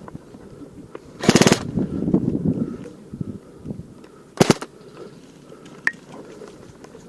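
Airsoft gun firing a short rapid full-auto burst about a second in, then a second, briefer burst a few seconds later.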